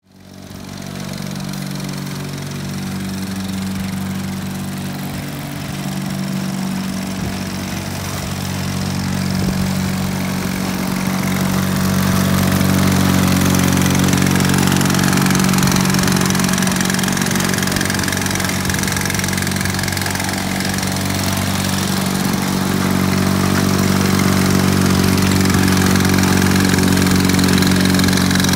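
The twin Lawn-Boy D-series two-stroke engines of a 1963 Lawn-Boy Loafer riding mower running steadily as it drives across the lawn. The sound grows louder over the first dozen seconds, then holds.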